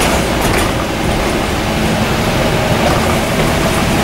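Scania N230UD double-decker bus on the move, heard from the upper deck: its five-cylinder diesel engine running under a steady noise of tyres on a wet road.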